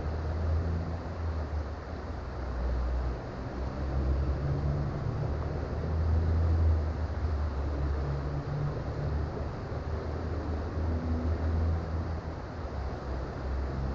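Creek water flowing steadily, with a low rumble that swells and eases every second or two.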